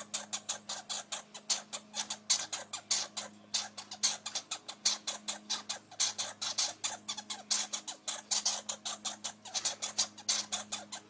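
Red squirrels at a caged wire feeder: quick, irregular clicks and scratches, several a second, over a faint steady low hum.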